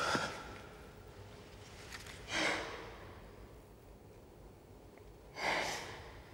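A person's heavy, breathy exhalations, three of them about three seconds apart, as in grief-stricken sobbing.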